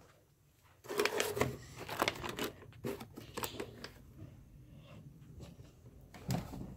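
Handling noise: a flurry of rustling and light clicks as things are moved about, starting after nearly a second of silence and thinning to a few faint clicks.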